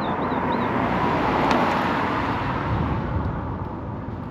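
Highway driving noise of a pickup truck towing a travel trailer: a steady rush of tires and wind that swells about a second and a half in and eases off near the end.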